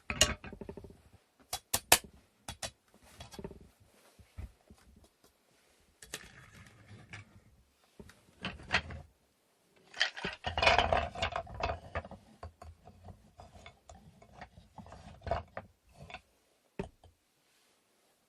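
Hand-work handling sounds: irregular clicks and knocks of small wooden pieces being picked up and set down, with rustling between them and a busier flurry a little past the middle. There is no even back-and-forth rhythm of sawing or sanding.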